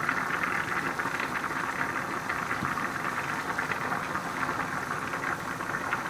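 Steady crackling sizzle, like oil frying in a hot pan, with one low knock of a knife on a plastic cutting board about two and a half seconds in.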